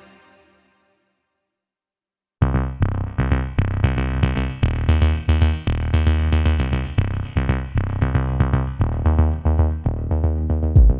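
Background music: one track fades out, and after about two seconds of silence an electronic track with a steady beat of synth chords and strong bass starts abruptly, with a louder hit near the end.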